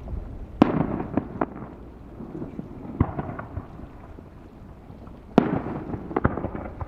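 Fireworks shells bursting in the sky. Two loud bangs, about half a second in and again near the end, are each followed by a rumbling tail and a few smaller pops. Another sharp bang falls at about three seconds.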